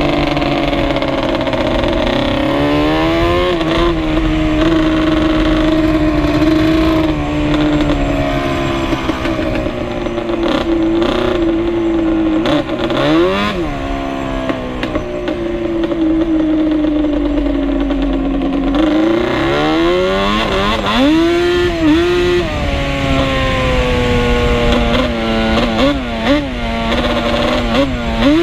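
Two-stroke ATV engine running under way, its pitch holding and sagging with the throttle and climbing in short sharp revs about halfway through and again in the last third.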